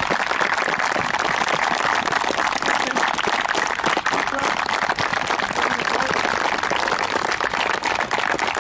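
Steady applause from a small crowd, many hands clapping at once without a break.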